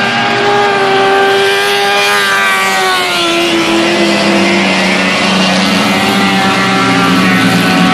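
Engines of several dirt-track pickup race trucks running together as the pack goes around the oval, their pitch sliding down a few seconds in as they pass and ease off.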